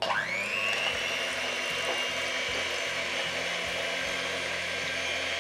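Electric hand mixer switched on and whipping cream in a glass bowl: the motor spins up with a quick rising whine, then runs steadily.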